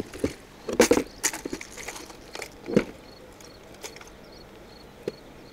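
Plastic tackle box being opened and rummaged through for a tool: scattered clicks and knocks of the latches, lid and tray.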